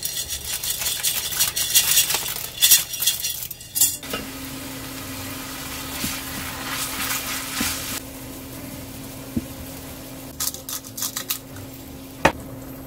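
Minced meat sizzling as it fries in a cast iron wok, stirred and scraped with a wooden spatula, with scattered clinks and knocks of utensils. The first few seconds are louder and busier; after that the sizzle settles, with a steady low hum underneath.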